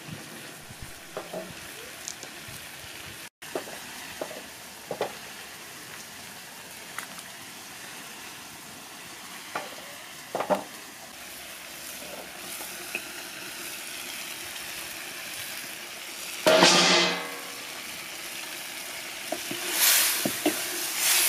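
Meat frying in a steel wok over a wood fire, a steady sizzle with scattered short knocks. A loud burst comes about three-quarters of the way through, and a wooden spatula stirs the meat and carrots near the end.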